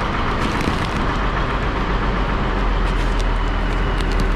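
A lifting machine's motor running steadily as a hook hoists a bulk bag of fertilizer of about a tonne off a pickup's bed. A deep hum comes in about a second in and holds, with light ticks and creaks over it.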